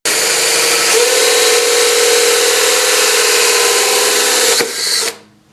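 Electric drill running steadily as it bores the entrance hole through the birdhouse's wooden wall, then winding down and stopping about five seconds in.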